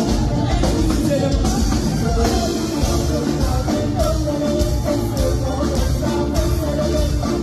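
Live band music with a woman singing into a microphone over electric guitar and drums with a steady beat.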